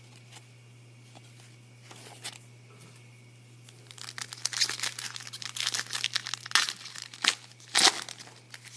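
Foil trading-card pack wrapper crinkling and tearing as it is opened, a dense run of crackles starting about four seconds in, with a few sharp louder crinkles near the end.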